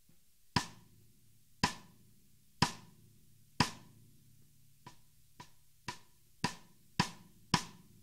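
Sonor Select Force 14x6.5 snare drum with wood hoops, struck with sticks as single strokes: four loud hits about a second apart, then six quicker hits, about two a second, that start soft and grow louder, each with a short ring.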